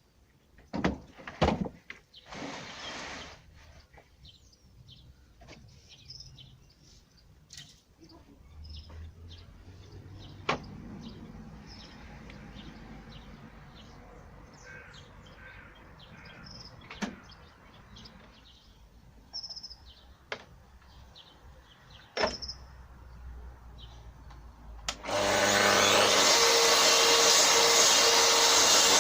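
Scattered knocks and handling clicks with birds chirping in the background, then about 25 seconds in a track saw starts and runs loudly and steadily as it cuts through 18 mm plywood.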